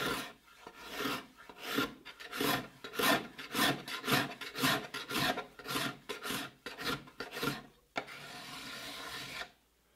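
Steel card scraper pushed in quick strokes along a white oak tabletop, about two strokes a second, shaving off the old gummy finish and smoothing the wood after hand-planing. Near the end the strokes give way to a steadier rub of about a second and a half.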